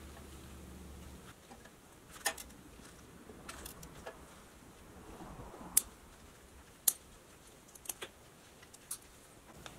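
Light metallic clicks and taps from handling small pressed-steel and chrome toy truck parts, coming irregularly, the sharpest two about six and seven seconds in. A low hum stops about a second in.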